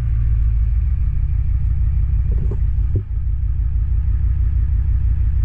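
Ford truck's 7.3-litre V8 diesel engine idling steadily, freshly started, with a low rumble. There is a short knock about three seconds in.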